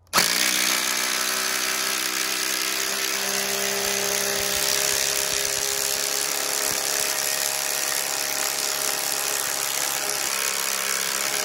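Ryobi P238 brushless impact driver hammering steadily on speed 3 as it sinks a half-inch by six-inch lag bolt into a 4x6 timber, a loud, continuous rattling buzz under heavy load.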